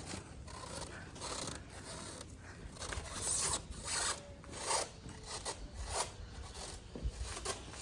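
Irregular scraping and rubbing in short bursts, from a new refrigerator being handled and moved.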